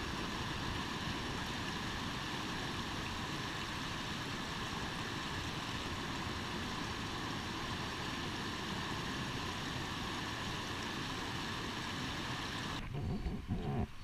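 Steady rush of creek water tumbling over rocks in a small cascade. Near the end it changes abruptly to a lower, uneven rushing.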